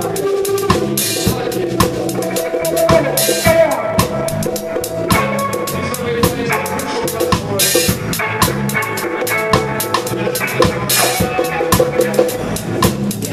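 Reggae band playing live, heard from the drummer's seat: the drum kit is close and loud, with steady snare and bass drum strokes over sustained bass and other instruments. Cymbals crash several times, about one, three, eight and eleven seconds in.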